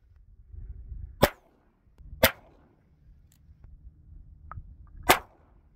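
Three shots from a Ruger Bearcat .22 LR single-action revolver, the first two about a second apart and the third some three seconds later, with a low rumble between them.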